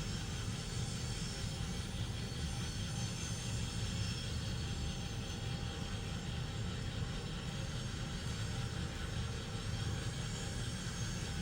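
N scale model train running on the layout: a steady hum from the locomotive and its wheels on the track, with a faint high whine over it.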